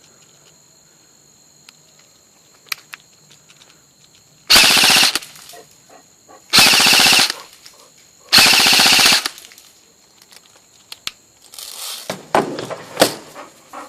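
G&G airsoft gun firing on full auto in three short bursts, each under a second long and about two seconds apart, followed near the end by a few sharper single clicks.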